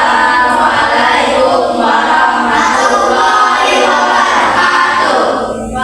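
A group of voices singing a song together, with no instruments heard.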